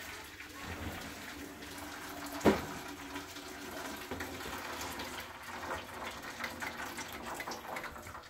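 Water running steadily from a kitchen tap, with a single sharp knock about two and a half seconds in.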